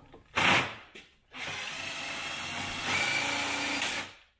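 Makita cordless drill, a short burst and then running steadily for nearly three seconds, slightly higher near the end, as it spins off a push-on clip that holds the grille to the bonnet.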